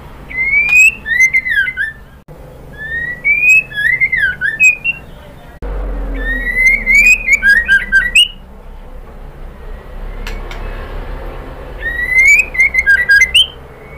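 White-rumped shama calling, presented as a female calling a male: four short phrases of rising and falling whistles that break into quick clicking notes. The last phrase comes after a pause of a few seconds.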